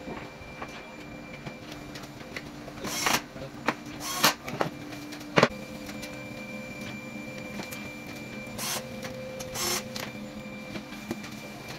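Cordless drill-driver whirring in a few short bursts as it drives screws into metal drawer-slide rails on an MDF cabinet panel, with clicks and knocks of the parts being handled, one sharp knock about halfway through. A steady low hum runs underneath.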